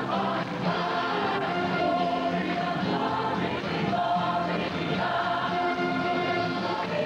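Large mixed choir of men and women singing, with notes held for a second or so at a time.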